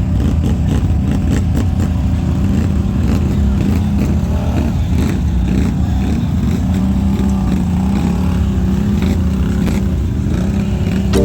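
ATV engine running steadily under way, with scattered knocks and rattles.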